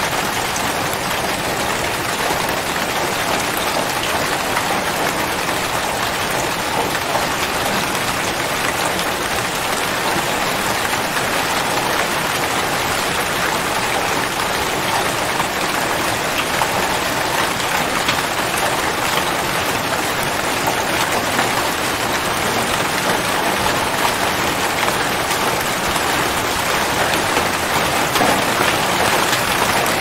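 Rain falling steadily: an even hiss of many small drops landing.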